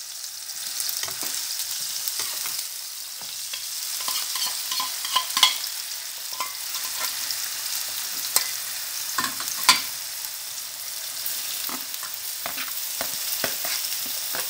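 Chopped onion, tomato and sliced hot dog sizzling steadily in hot oil in an aluminium pan. A metal spoon knocks and scrapes against the pan as the food goes in and is moved about, with three sharper knocks, the loudest sounds, around the middle.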